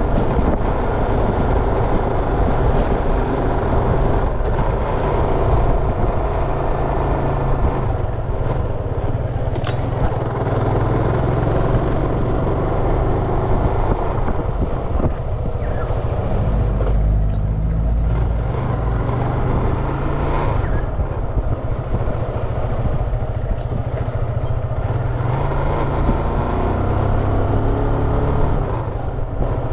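A road vehicle on the move: steady engine and road noise with a continuous low rumble.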